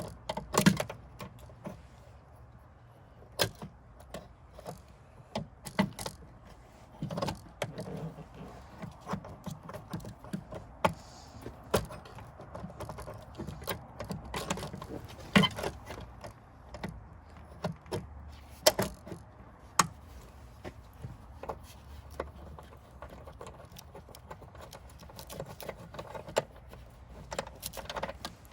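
Irregular metal clinks, clicks and knocks of hand tools, 10 mm nuts and a cover being handled and fitted back in place in a car's engine bay.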